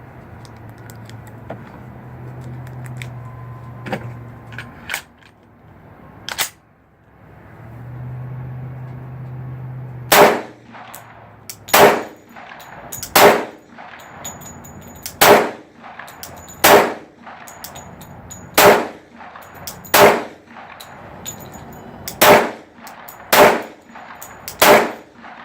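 Glock 29 10mm pistol firing ten shots at a steady pace, roughly one every second and a half, starting about ten seconds in. Before the shooting, a few light clicks.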